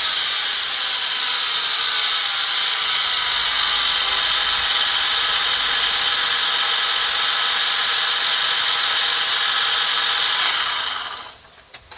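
BMW N42 four-cylinder engine running steadily with a loud, high-pitched whine and hiss at the intake manifold, which the owner traced to a worn internal bearing in the alternator. The sound dies away near the end as the engine is stopped.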